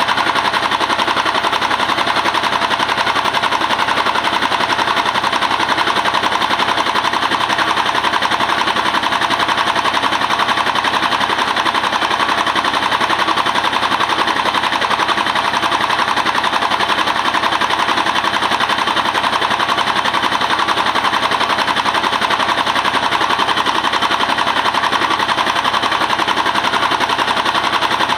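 Mobile rice mill's diesel engine and hulling machinery running steadily, a loud, fast, even clatter.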